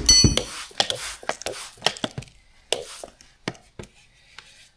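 A loud thump with a brief metallic ring, then an irregular series of short sharp knocks and clicks. These are handling noises from working on the freshly mounted lawn-tractor tire and wheel during a soapy-water leak test.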